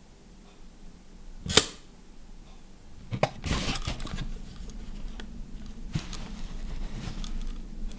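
Leaf shutter of a Rollei 35 S firing on the B (bulb) setting: one sharp metallic click about a second and a half in. Afterwards, a few smaller clicks and a short rustle as the camera is handled.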